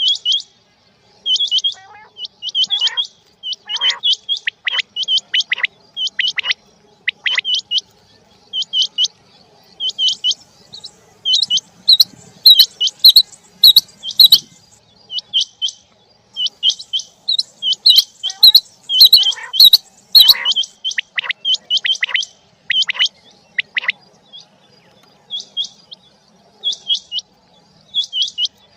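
Rain quail calling: short sharp whistled notes repeated in quick runs of two or three, with brief pauses between the runs.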